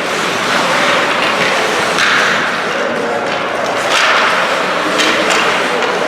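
Game ambience in a large indoor hall: a steady wash of play and spectator noise, broken by several sharp knocks and clacks from the play. Faint voices in the background.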